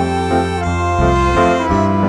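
Background music with sustained keyboard or organ-like notes changing every half second or so.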